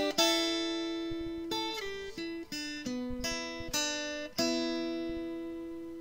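Closing music on acoustic guitar: a handful of strummed chords, the last one, about four and a half seconds in, left ringing and slowly fading.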